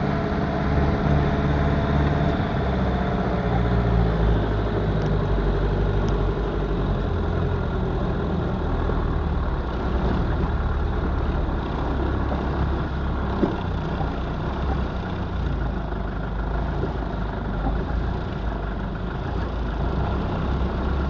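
An off-road vehicle's engine running at low revs, heard from inside the cab as the vehicle crawls over a rough track. The engine note shifts a little now and then, and there is a single knock about two-thirds of the way through.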